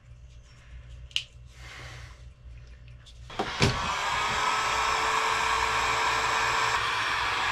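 Light handling of a cable, then about three and a half seconds in an electric heat gun switches on and blows steadily. It is shrinking heat-shrink tubing onto a freshly crimped lug on a 1/0 (single aught) battery cable.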